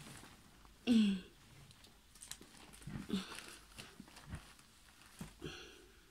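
Soft rustling and handling noises as clothes are handled, with scattered light knocks. A short hummed voice sound falls in pitch about a second in.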